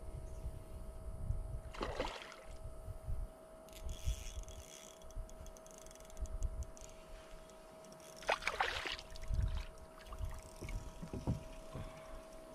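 Water lapping and splashing against a kayak's hull over a gusting low rumble of wind on the microphone. Two brief splashy rushes come about two and eight seconds in.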